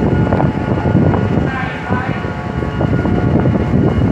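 Loud city street noise: a steady low rumble with knocks and indistinct voices, one voice most clear about one and a half seconds in.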